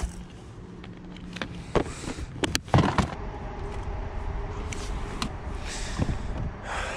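Clear plastic tackle box clicking and knocking as it is handled, a few sharp clicks in the first three seconds. Then the kayak's pedal drive whirring steadily as he pedals.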